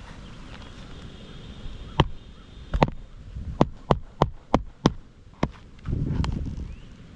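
Hammer driving roofing nails through a replacement shingle: a string of about nine sharp strikes, coming about three a second in the middle, with a low rumble near the end.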